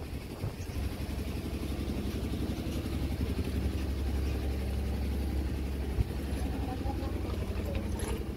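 An engine idling steadily, with a single sharp knock about six seconds in.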